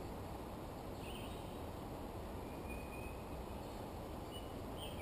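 Quiet outdoor ambience: steady low background noise with a few faint, short, high bird chirps, one about a second in, a longer one near the middle and another at the end.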